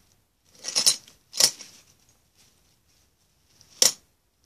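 Gymnastics medals on ribbons clinking against each other as they are handled and sorted: three short metallic clinks, about a second in, half a second later, and near the end.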